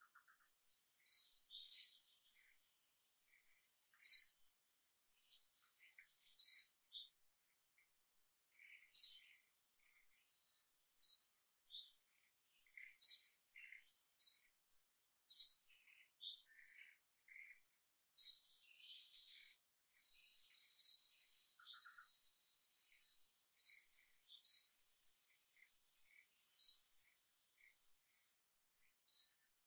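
Small birds chirping in the tree canopy, with short high chirps every second or two, over a faint steady high insect buzz.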